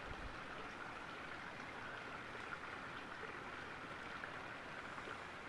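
Small backyard pond waterfall trickling and splashing steadily and faintly.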